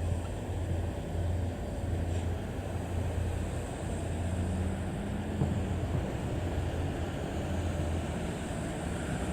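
KiHa 40 series diesel railcar running, a steady low engine drone, with a slight rise in pitch about halfway through and wind noise on the microphone.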